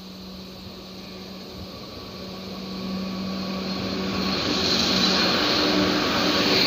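Electric freight locomotive approaching and passing close by, growing steadily louder. A steady low hum gives way about four seconds in to a rising rush of wheels on rails, loudest as the locomotive and the first wagons go past near the end.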